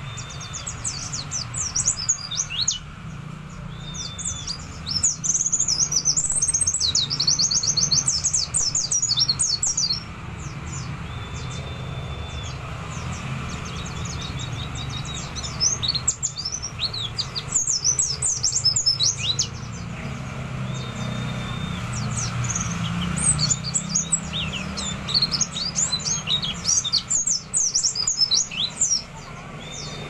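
A caged white-eye (pleci) singing. Its song comes in bursts of rapid, high twittering and fast trills, with short pauses between them. The song is filled with imitations of other birds' calls. A short, flat whistle recurs now and then.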